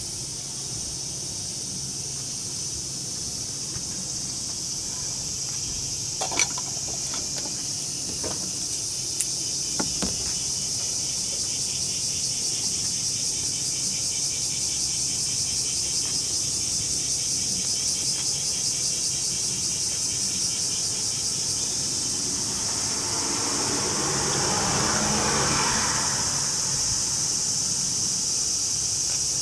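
Insects singing in a steady, high-pitched pulsing drone. A few sharp clicks come between about six and ten seconds in, and near the end a wider noise swells and fades over a few seconds.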